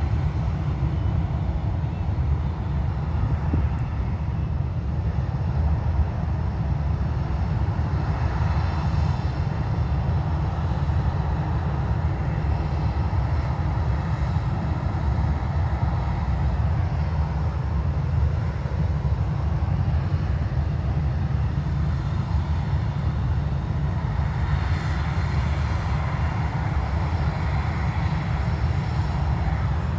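Jet engines of a taxiing Ryanair Boeing 737 at taxi power: a steady low rumble with a whine over it. The whine swells about nine seconds in and again from about twenty-four seconds.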